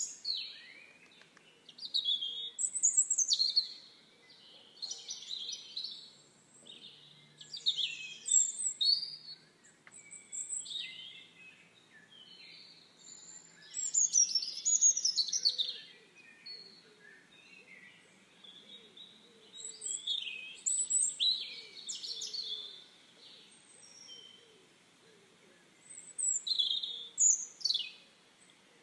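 Songbirds singing: short bursts of quick, high chirps and trills every few seconds.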